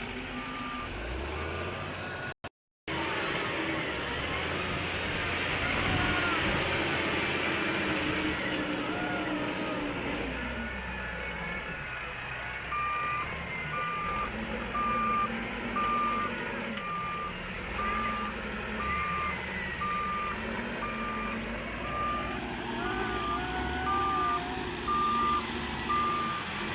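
Mahindra backhoe loader's diesel engine running under load, its revs dropping about ten seconds in, with the machine's reversing alarm beeping about once a second through the second half. A brief cut to silence about two and a half seconds in.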